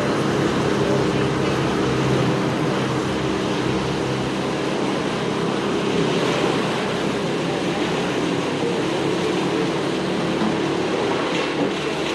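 Engine running steadily under load, a continuous loud rumble with a low hum that holds the same pitch throughout.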